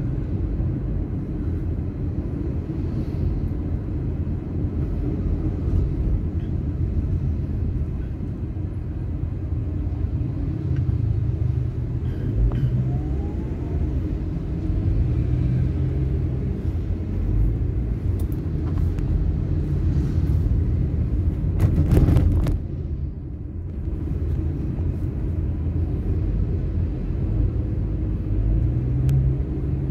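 Steady low engine and road rumble heard from inside a moving car's cabin. About three-quarters of the way through there is a brief loud clatter, then the rumble dips for a moment.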